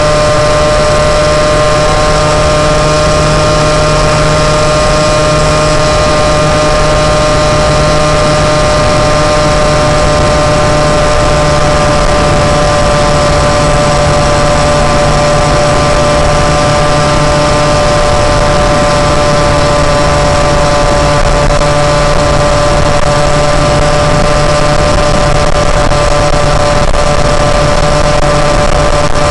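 Moped engine running steadily at an unchanging pitch while riding, over a constant rushing noise.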